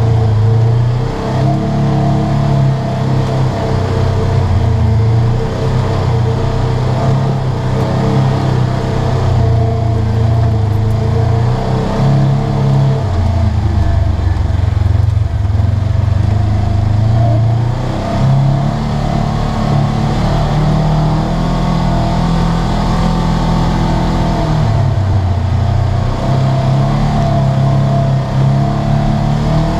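Polaris RZR 900S side-by-side's twin-cylinder engine heard from inside the cab on the move, its pitch rising and falling again and again as the throttle is opened and eased.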